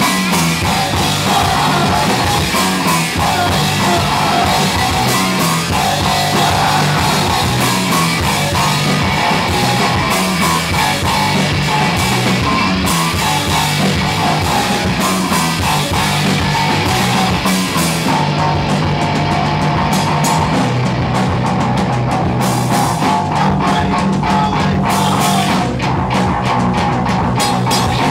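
A live rock band playing loud, with drum kit and guitar. About two-thirds of the way through, the cymbal wash thins and separate drum hits stand out more.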